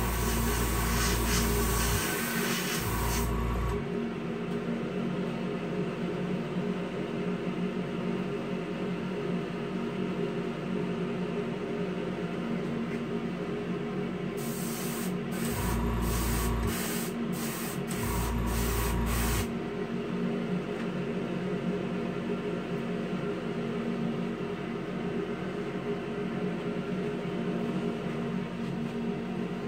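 Airbrush spraying clear coat in bursts of hiss, a longer spray at the start and a run of about seven quick pulses in the middle, over the steady hum of the airbrush compressor and spray booth fan.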